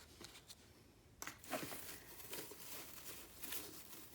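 Hands unwrapping packaging by hand: a dense crinkling that starts about a second in and keeps going.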